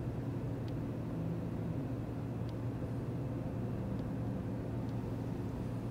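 Room tone: a steady low hum with a few faint ticks.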